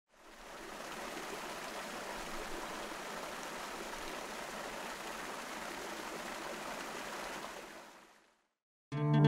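Water falling and splashing in a tiered fountain: a steady rush that fades in at the start and fades out about a second before the end. Guitar music starts just at the very end.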